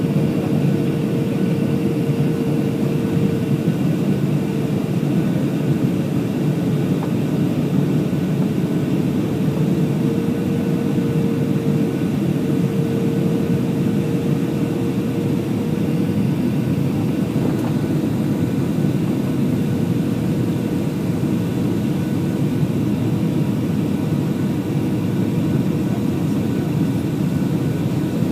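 Airliner cabin noise during the approach: the steady roar of the engines and rushing air, with a droning tone riding on top, unchanging throughout.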